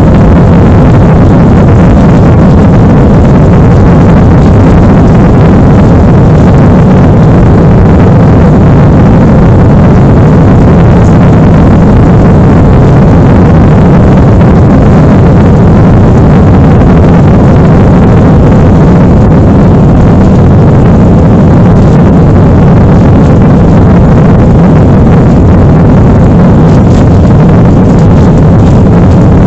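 Loud, steady roar of an Airbus A320's jet engines and airflow at climb power, heard inside the passenger cabin beside the wing.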